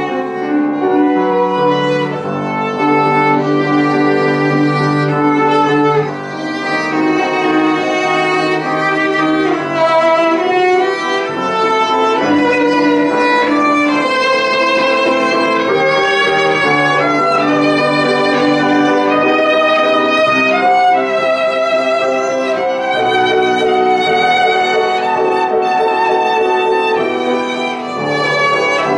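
Cello played with the bow in a lyrical romance, sustained notes sung out with wide vibrato, with a piano accompanying underneath.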